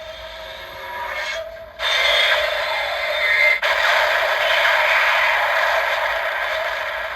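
Mechanical sound effect played from the DX Arc Cube Premium toy's built-in speaker. It becomes much louder about two seconds in, then slowly fades toward the end.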